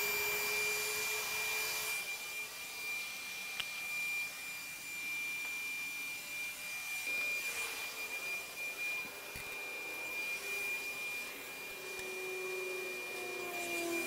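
STIHL SEA 20 battery-powered handheld vacuum running continuously with its trigger locked on: a steady high motor whine over the hiss of air through the unit.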